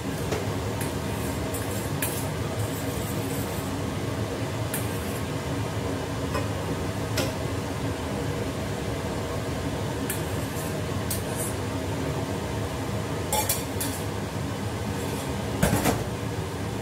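Metal bowl and spoon clinking and scraping against a steel saucepan, in scattered clinks as leftover egg is tipped in and stirred into tomato soup, over a steady low kitchen rumble.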